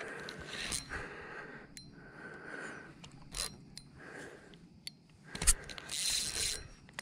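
Spinning reel being cranked in short spells while a hooked channel catfish pulls against the line. A sharp knock comes about five and a half seconds in.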